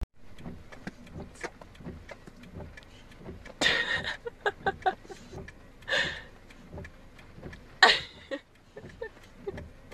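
A boxer dog barking three times inside a car, with small clicks and knocks in between.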